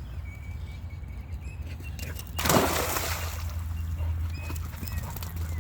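Birds calling with short, thin whistled notes over a low steady rumble. About two and a half seconds in comes a brief loud rustling swish, the loudest sound here.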